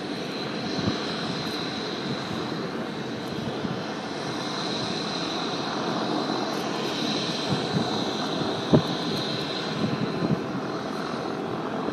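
Agusta A-109 helicopter's twin turbine engines running steadily: a constant rushing noise with a steady high whine on top. A few short knocks break through, the sharpest about nine seconds in.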